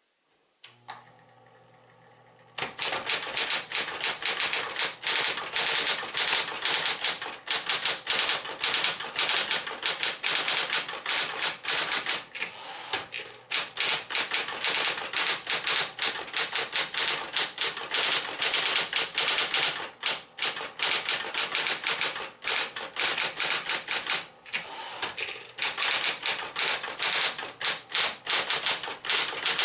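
Smith-Corona Electra 120 electric typewriter: after a faint click, its motor hums quietly for about two seconds. Then fast typing starts, a dense run of key and typebar strikes with a few short pauses.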